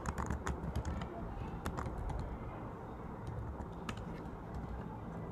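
Keystrokes on a computer keyboard: a quick run of taps at the start, a few more about two seconds in, and a single tap near four seconds.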